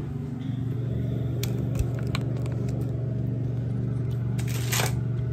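A steady low mechanical hum, with a few light clicks and a short rustle near the end.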